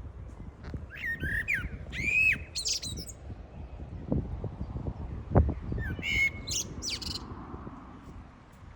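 Small birds chirping and whistling with quick gliding notes, in two bouts: about a second in and again near six seconds. A low rumble runs underneath, with a couple of knocks in between.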